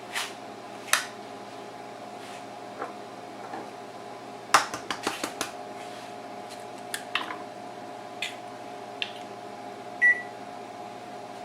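Microwave oven running with a steady hum, with scattered sharp clicks and taps and one short beep about ten seconds in.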